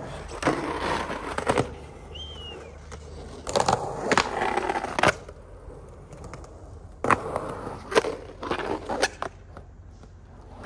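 Skateboard trucks grinding along a concrete curb in slappy grinds, with wheels rolling on concrete. Several rough scraping runs of a second or so each, with sharp clacks as the board hits and leaves the curb.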